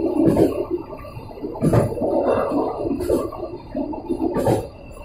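Passenger train running along the track, heard from the rear of the last carriage: a steady rumble and rush of wheels on rail, with four sharp knocks spaced a second or so apart.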